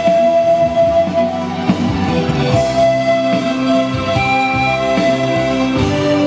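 Bamboo pan flute playing a melody of long held notes over a guitar and drum accompaniment.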